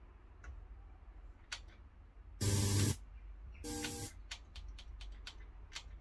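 Marantz 6003 FM tuner being stepped through the band: two short bursts of station sound and hiss, about two and a half and three and a half seconds in, then a run of soft clicks as the tuning buttons are pressed, over a low steady hum.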